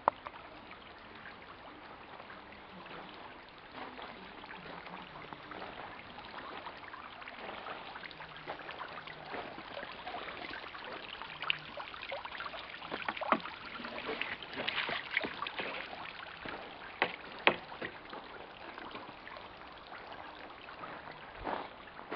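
Water splashing and trickling as long wooden poles are pulled from it, with a few sharp knocks of wood against wood around the middle.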